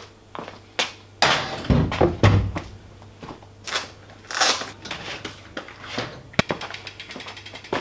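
Knocks, clanks and rustles of a road bike being handled and set into a bike work stand. Near the end there is a run of rapid, even ticking.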